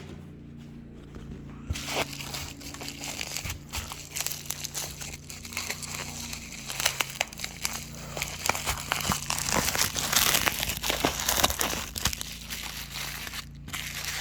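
Padded mailing envelope being opened by hand, its packing crinkling and crackling in a dense run of small clicks that starts about two seconds in and stops shortly before the end.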